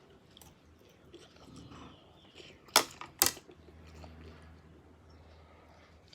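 A person eating, with faint chewing. Two sharp clicks or taps come about half a second apart near the middle and are the loudest sounds.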